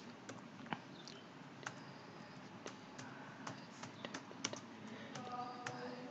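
Computer keyboard keys typed one at a time: an uneven run of faint, separate key clicks.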